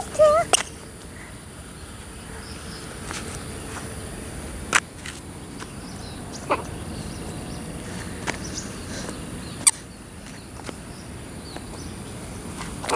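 Birds chirping faintly over a steady high-pitched hum and outdoor background noise, with a few sharp clicks now and then.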